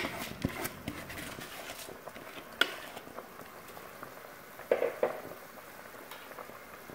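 A pot of water with vegetables boiling, with a steady faint bubbling, just after soaked rice has been tipped in from a plastic bowl; a few clicks of the bowl in the first second and one sharp tap about two and a half seconds in.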